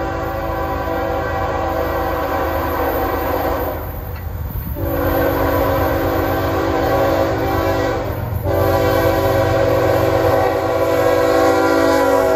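Horn of a GE ES44AC diesel locomotive, Norfolk Southern 8104, blowing three long blasts as the train approaches, with short breaks about four and eight seconds in, over the low rumble of the oncoming train. The pitch drops at the very end as the lead locomotive passes.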